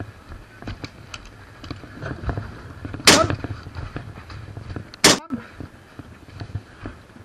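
Two loud, sharp airsoft gun shots about two seconds apart, over a run of small clicks and knocks.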